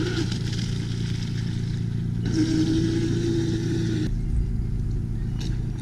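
Traxxas M41 RC boat's electric motor running steadily.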